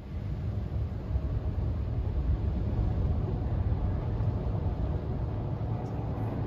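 Mark VII soft-touch automatic car wash working over the car, heard from inside the cabin. A low rumble with a hiss of spray comes in suddenly and then holds steady.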